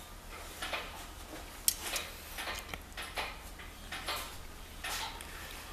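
Irregular metallic clicks and light knocks from the opened JL-S170 manual gearbox's shaft bearings and gears being turned and rocked by hand, checking the bearings for play.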